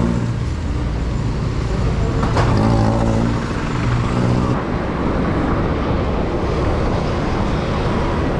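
Road traffic: a motor vehicle's engine running close by, its low hum ending about four and a half seconds in, then steady road noise.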